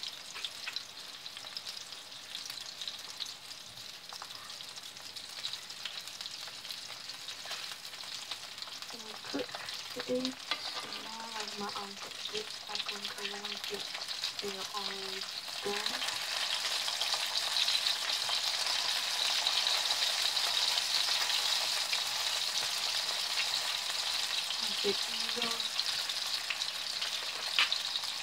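Meat patties sizzling in a nonstick frying pan, with light clicks of a fork as they are turned over. The sizzle grows louder a little past the middle, once the patties have been flipped onto their uncooked side.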